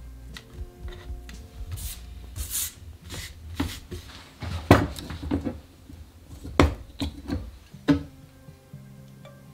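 Kitchen shears snipping a red chili pepper into rings over a wooden cutting board, then a hand brushing across the board, followed by several sharp knocks. Soft background music runs underneath.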